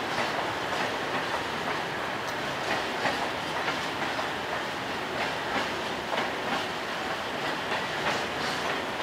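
Freight train of tank wagons rolling past, its wheels clicking repeatedly over rail joints above a steady rumble.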